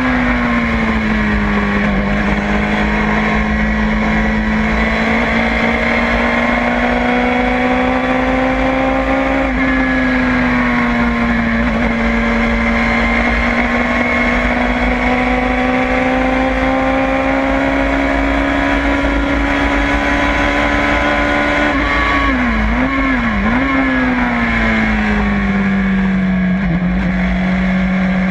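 LFC Tornado prototype race car's engine heard on board at racing speed. The revs drop about a second in, then climb slowly through long pulls with a brief shift near ten seconds. About twenty-two seconds in the revs flick up and down twice quickly before falling away for a corner.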